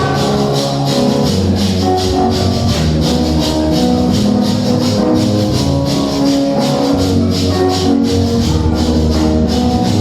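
Worship band music with no singing: sustained pitched notes over a steady, fast beat of shaken hand percussion.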